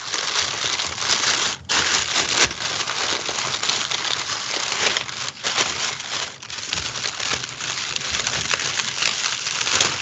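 A takeout food bag being handled and opened: loud, continuous crinkling and rustling with two brief breaks, about a second and a half in and about five seconds in.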